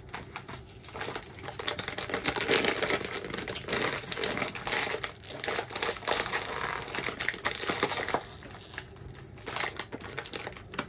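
Plastic snack bag of chocolate-covered pretzels crinkling irregularly as it is handled, easing off for a moment near the end.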